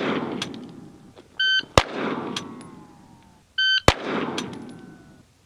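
Electronic shot-timer beep followed a split second later by a single pistol shot that echoes and dies away, twice. The echo of an earlier shot is fading at the start.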